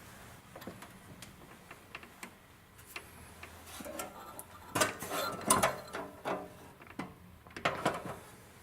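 Irregular mechanical clicks and clattering of hardware being handled during disassembly, in two bursts from about five seconds in and again near the end.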